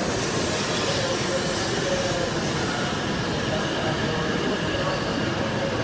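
Hokuriku Shinkansen train pulling slowly into the platform: a steady rolling rumble with a faint whine.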